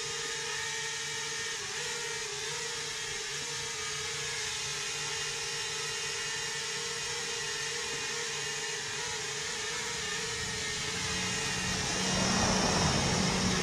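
DJI Mini 2 quadcopter on aftermarket stealth propellers hovering with a steady high-pitched buzz from its motors and props, the pitch wavering slightly now and then. About twelve seconds in it drops low toward the floor and gets louder, with a rush of prop wash.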